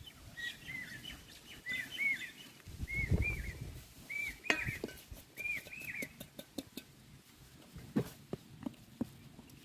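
A bird calling repeatedly in short, arched whistled chirps, often in pairs, that stop about six seconds in. A few light knocks and clicks come through, with a low thud about three seconds in.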